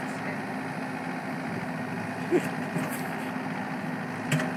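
Caterpillar 305-5D mini excavator's diesel engine running steadily while the bucket digs into chip-and-debris ground, with short knocks about two and a half seconds in and near the end.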